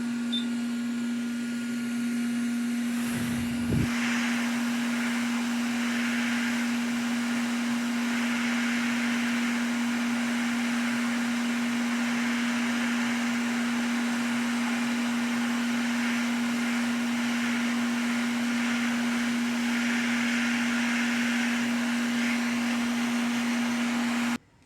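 Hot air rework station blowing steadily, reflowing the solder of a PS5 HDMI port: a constant hum with an airy hiss. There is a brief low knock about four seconds in, and the sound stops abruptly near the end.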